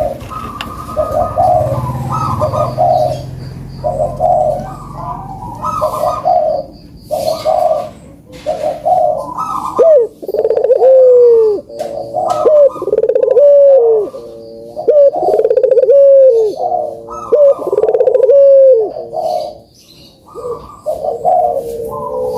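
Puter doves (collared doves) cooing over and over. First comes a run of short rolling coos, then from about halfway a steady series of longer coos, each with a quick rise and a falling glide, about one a second. It is the kind of call played as a lure to get a quiet dove to start calling.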